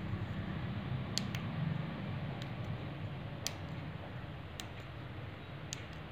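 Small tactile push buttons on a perfboard clicking under the fingers, about eight sharp clicks, several in quick pairs, over a steady low hum.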